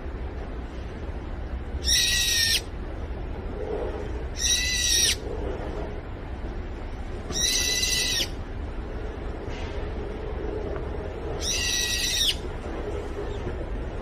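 A bird gives four loud calls, each lasting under a second and spaced a few seconds apart, over a steady low background rumble.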